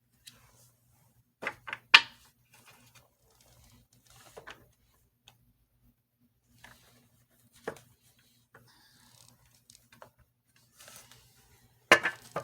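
Tarot cards being handled: a few sharp taps and slaps with faint rustling between them, the loudest about two seconds in and another cluster near the end.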